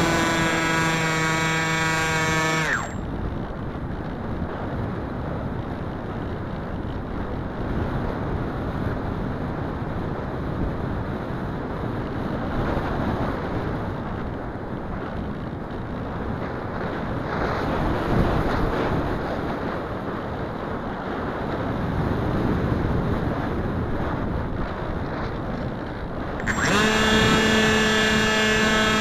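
Wing Wing Z-84 flying wing's electric motor and propeller whining, falling in pitch and cutting out about three seconds in. Then comes a long stretch of wind rushing over the airframe and microphone as it glides unpowered. Near the end the motor whine starts again at a steady pitch.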